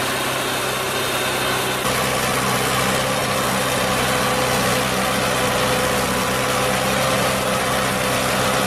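Engine of a heavy farm machine running steadily, its note changing abruptly about two seconds in and then holding steady.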